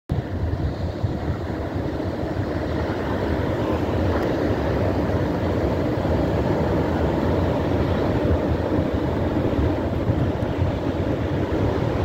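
Pacific surf breaking and washing up a sandy beach, a steady roar, with wind rumbling on the microphone.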